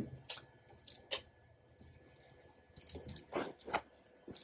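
Faint, scattered rustles of quilt fabric and tulle netting, a few short ones early and a cluster about three seconds in, as the small quilt is slid out from under the sewing machine's needle and lifted.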